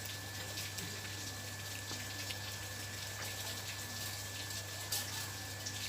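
Faint crackling clicks of puffed rice being chewed, over a steady low electrical hum, a thin high whine and hiss.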